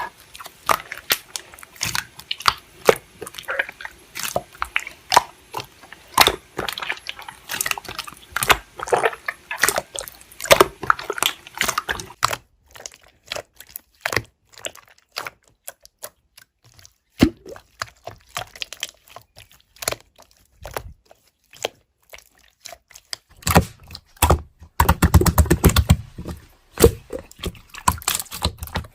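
Slime being squeezed and pressed by hand, making quick wet clicks and pops. The clicks thin out for a stretch in the middle, then come as a dense, louder burst of squishing near the end.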